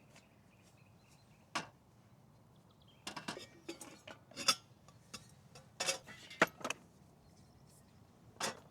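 Metal camp cookware being handled: a single knock, then a cluster of clinks and clatter with brief ringing, and one more knock near the end.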